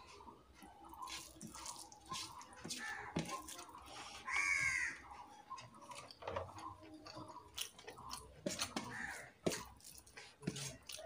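Close-up eating sounds: wet clicks and smacks of chewing, and rice and curry being squished and mixed by hand in a steel bowl. About four seconds in, a short, louder pitched call, the loudest sound in the stretch.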